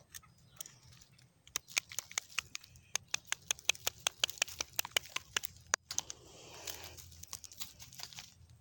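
A clump of grass being pulled out of the ground by hand: a quick run of sharp cracks, several a second, as its roots tear out of the soil. Near the end the cracks give way to a rustle of grass and dirt.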